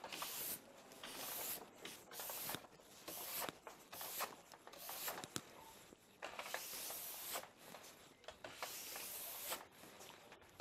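Steel brush swept repeatedly along a cross-country ski's base: a series of scratchy swishes, two longer strokes in the second half. It is sweeping the leftover paraffin out of the base structure after scraping.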